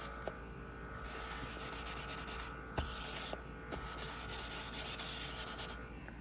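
Battery-powered desktop cleaner running, its small high-speed fan motor giving a steady whine while the cleaner rubs back and forth across the desk surface in scratchy passes about a second long. The motor cuts off near the end.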